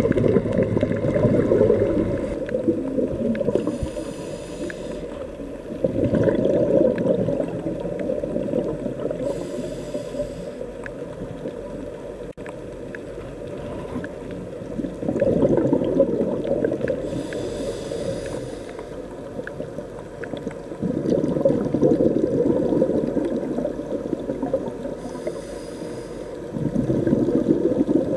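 Scuba diver breathing through a regulator underwater. Each cycle is a short hiss of inhaled air followed by a longer rush of exhaled bubbles, repeating about every six to seven seconds.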